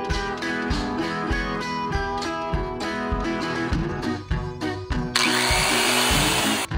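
Guitar-led background music throughout. About five seconds in, an electric dual-blade cut saw runs loud for about a second and a half, starting and stopping abruptly.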